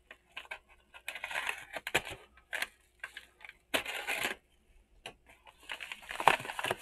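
Paper mailer being handled and pulled open by hand, crinkling and tearing in irregular rustling bursts, with a sharp click about two seconds in and louder tears near four and six seconds.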